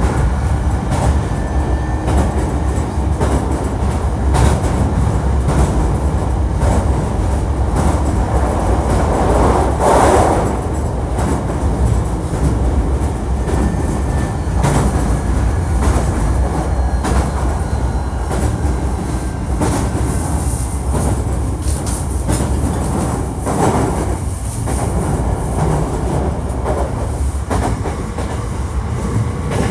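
Hankyu 1300 series electric train running at speed, heard from inside the car: a steady rumble of wheels on rail with frequent rail-joint clicks, swelling into a louder rush about ten seconds in.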